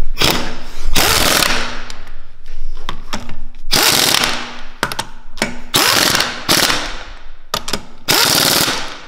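Pneumatic impact wrench hammering on car wheel lug bolts, most likely tightening them, in about five loud bursts of roughly a second each with short blips between.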